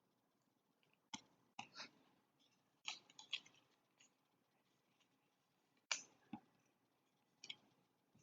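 Faint, scattered clicks and light snaps of trading cards being handled and flipped through by hand, about eight soft taps spread over several seconds.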